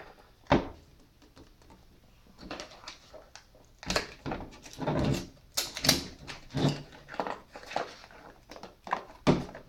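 Plastic packaging of a GoPro HERO5 being worked open by hand: a sharp knock, then a run of irregular clicks and scrapes as the case is pushed and slid.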